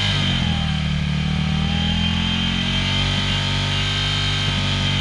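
Ducati Monster 797's air-cooled 803 cc L-twin, breathing through a Termignoni race exhaust with the dB killer removed, held steady at about 5000 rpm in neutral for a stationary noise test. The revs dip briefly just after the start and then hold.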